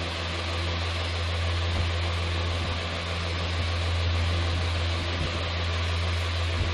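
Steady low hum under a constant hiss, like a running fan or machine in the background, with a few faint low bumps.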